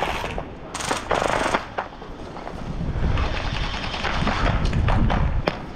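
Airsoft guns firing bursts on full auto, a rapid run of clicking shots: a short burst about a second in, then a longer spell of firing from about halfway through.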